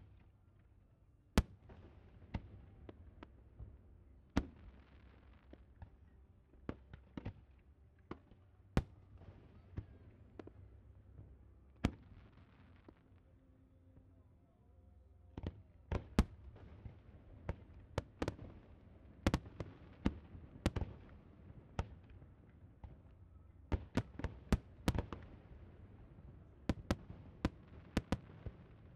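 Fireworks display: aerial shells bursting with sharp bangs at irregular intervals over a steady low rumble. The bangs are sparse at first and come thick after about halfway, with a dense run of rapid bursts near the end.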